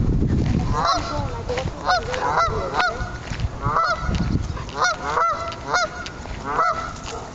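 A flock of geese honking repeatedly, many short calls overlapping about one to two a second. A low rumble sits under the calls at the start and again around four seconds in.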